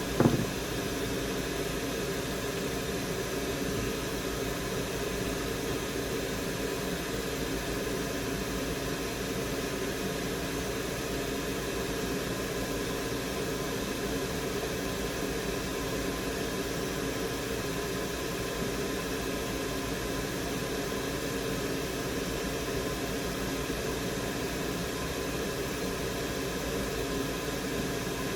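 Steady machine hum with an even hiss and several faint steady tones, like a fan running. A short knock right at the start.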